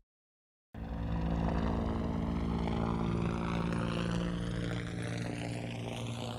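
Helicopter sound effect processed with a Doppler effect, starting about a second in: a steady rotor and engine drone with a sweeping, phasing shimmer as it passes, sounding fairly distant and easing off slightly near the end.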